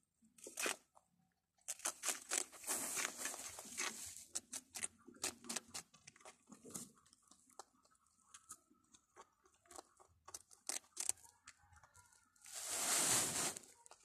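Young rabbits eating crumbly moist food from a plate: quick crisp nibbling and crunching clicks, dense for the first few seconds and then sparser. A louder burst of noise lasts about a second near the end.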